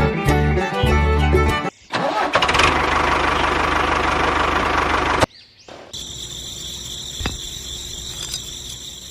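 Bluegrass-style music ends; then a small engine starts and runs loudly for about three seconds before cutting off abruptly. After that, crickets chirr steadily.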